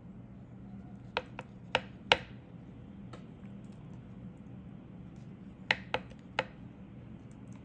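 A spoon clicking and knocking against a plastic blender cup as thick Greek yogurt is spooned in: about four sharp clicks a second or two in, then three more near the end, over a low steady hum.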